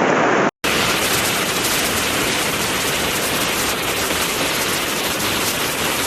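Loud, steady rush of heavy storm water, the even hiss of a downpour and running floodwater. It comes in after a brief dropout about half a second in.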